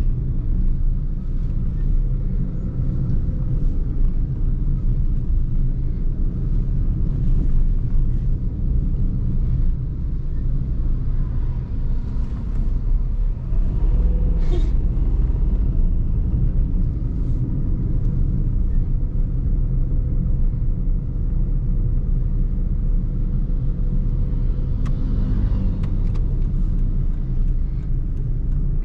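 Toyota Vitz's 1.0-litre three-cylinder 1KR engine and tyres on the road, a steady low rumble at an even pace while driving, with a few faint clicks.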